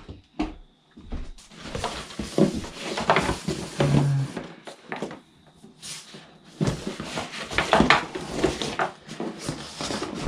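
Irregular knocks, clatter and rustling as plastic backpack-sprayer parts and their packaging are handled and set down.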